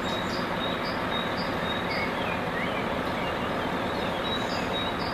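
Full-size diesel cement mixer truck running, a steady, even engine noise.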